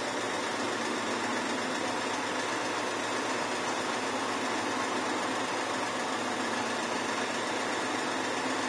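Turn Pro geared-head drill press running steadily, its motor and gear head turning with the power feed engaged.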